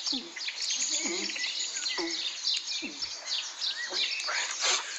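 Small birds chirping and twittering busily, with a man gulping from a drinks can roughly once a second.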